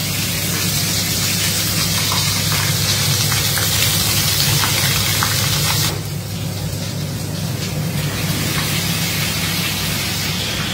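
Hot oil sizzling in a pan as garlic paste fries in it for a masala: a loud, even hiss that drops sharply about six seconds in and then goes on more softly, over a steady low hum.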